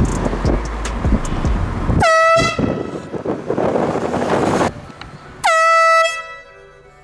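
Air horn blasting twice, about three and a half seconds apart. Each blast is a short, loud, single high tone that dips in pitch as it starts, and the second rings out briefly. A rushing noise with a low rumble runs under and between the blasts until shortly before the second.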